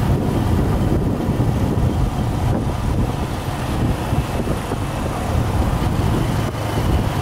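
A moving TVS motorcycle, heard from the pillion seat: steady wind noise on the microphone over the motorcycle's running engine and road noise.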